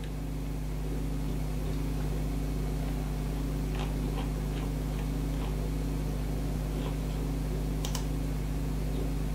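Computer mouse in use: a few faint scroll-wheel ticks about four to five seconds in, then a sharper button click near eight seconds, over a steady low hum.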